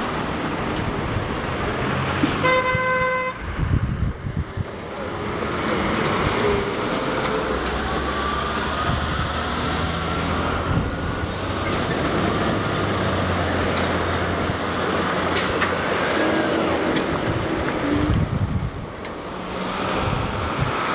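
Busy city street traffic, with car and truck engines and tyres going by. A vehicle horn honks once for about a second, a couple of seconds in. A low engine drone from a nearby truck runs through the middle.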